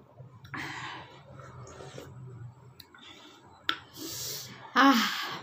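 A woman slurping lemon water from a plate, with a sharp mouth click. Near the end comes a short voiced exhale, the loudest sound.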